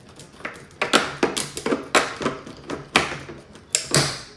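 A knife cutting at a plastic zip tie inside a plastic-cased unit: an irregular run of about a dozen sharp clicks and taps, a quarter to half a second apart.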